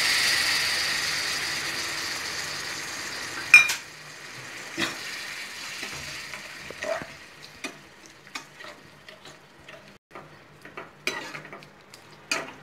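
Tamarind water sizzling as it hits the hot onion-tomato masala in a non-stick kadai, the hiss fading over the first few seconds. Then a spoon stirring the gravy, with a sharp knock on the pan about three and a half seconds in and scattered clicks and scrapes after it.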